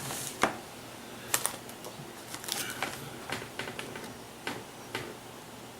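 Scattered light clicks and taps of the aluminum rod holders and their packaging being handled, irregular and spaced from a fraction of a second to about a second apart.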